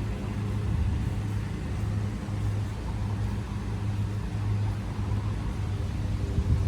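A steady low hum with a rumble beneath it, running evenly throughout.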